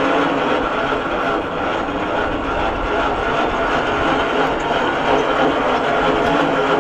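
Electric winch motor running steadily under heavy load as it drags a massive oak log. The winch is struggling and overheating, which the owner puts down to a battery that is not fully charged and a loose connection.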